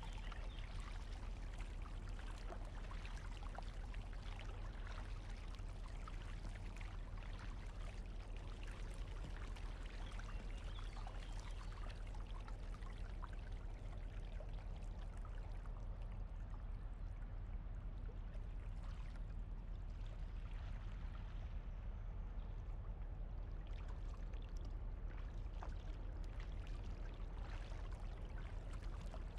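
Double-bladed kayak paddle splashing and dripping as it dips in and out on alternate sides, with water trickling along the hull of an Itiwit X500 inflatable kayak. A steady low rumble runs underneath.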